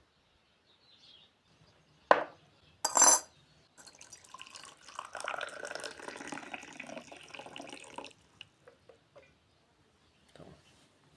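Two sharp clinks, then liquid pouring for about four seconds with small clinks in it.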